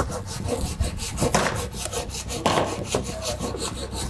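Hand saw cutting through a plywood board with quick back-and-forth strokes.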